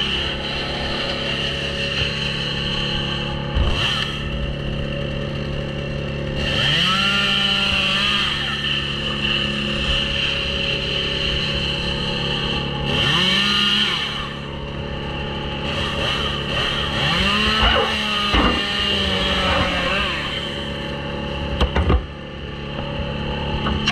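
Chainsaw revving up to full speed in three short bursts of cutting, each rise in pitch clear and quick. A steady engine drone runs underneath throughout.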